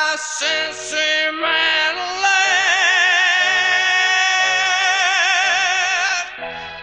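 Live rock music with keyboards: a high wordless melody line that slides between notes, then holds one long note with wide vibrato from about two seconds in until about six seconds in, over sustained low chords.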